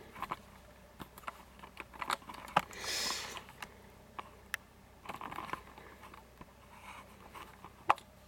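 A camcorder being unscrewed and handled: scattered small clicks and knocks, with a short scraping rasp about three seconds in.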